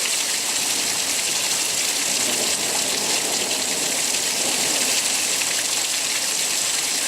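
Heavy rain falling steadily in a thunderstorm, an even hiss of downpour.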